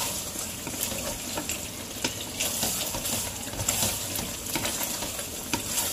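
Thick chicken rendang sizzling in its own separated oil in a pan while a wooden spatula stirs it, with scattered light scrapes and clicks of the spatula against the pan. The oil frying out of the reduced sauce is the sign that the rendang is nearly done.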